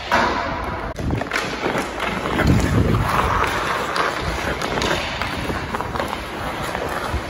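Hockey skates scraping and carving on rink ice while a hockey stick handles a puck, with several sharp clicks of blade on puck, over a low rumble of air on the moving microphone.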